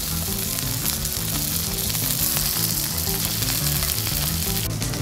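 Marinated beef steak searing in hot fat in a nonstick frying pan: a steady, dense sizzle.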